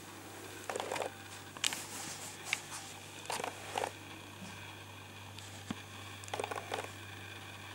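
Handling noise from a handheld camera: a few short clusters of soft clicks and rustles over a steady low hum.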